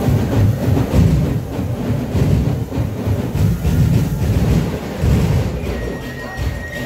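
A festival percussion ensemble of many drums playing a fast, dense, driving rhythm, heavy in the low end. A thin, steady high tone joins about two-thirds of the way through.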